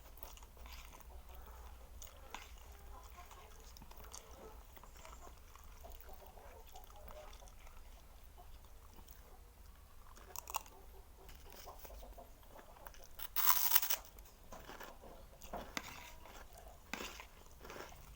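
Close-up eating: quiet chewing and small crunches and clicks, with one louder crunch about two-thirds of the way through.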